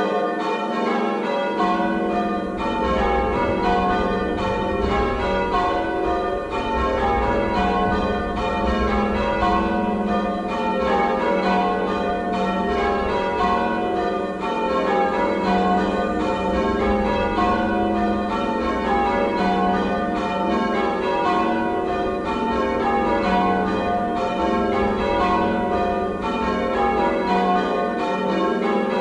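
Full-circle change ringing on a ring of six church bells, tenor 10–2–12 cwt in F, the bells striking one after another in an even, unbroken rhythm. A low rumble joins underneath about a second and a half in.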